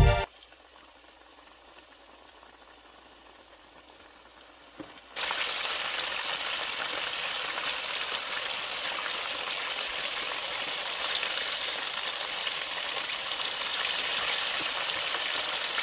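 Flour-dredged chicken pieces deep-frying in hot oil: a faint sizzle that jumps suddenly, about five seconds in, to a loud, steady sizzle.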